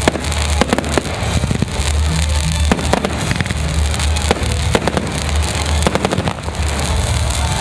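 Consumer fireworks display: a rapid, irregular series of bangs and crackles from shells and shots going off.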